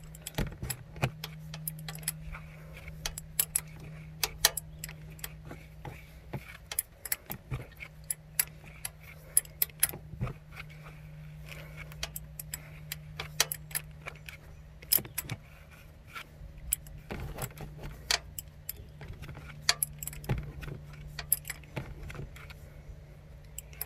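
Adjustable wrench clicking and clinking on the metal fitting of a 7.3 IDI diesel fuel injector, re-set and turned again in short strokes because the slightly bent part binds on the threads as it is tightened down. A steady low hum runs underneath.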